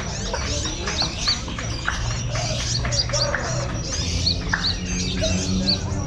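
Many small songbirds chirping and calling at once, with short, high, arched chirps repeating every fraction of a second, over a steady low hum.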